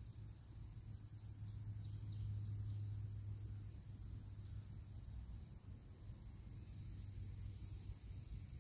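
Insects chirring in a steady, unbroken high drone, with a low steady hum underneath.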